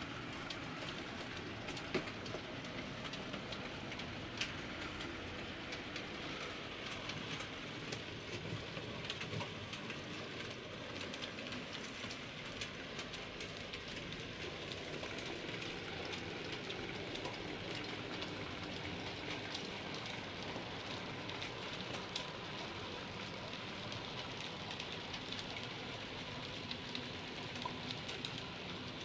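Model freight train running on a model railway: a steady hiss of the locomotive's motor and rolling wheels, with scattered small clicks as the wagons pass over rail joints and pointwork.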